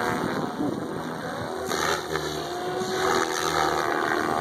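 SAB Goblin 700 electric RC helicopter flying overhead: the rotor blades and motor whir steadily, with louder rushes about two seconds and about three and a half seconds in.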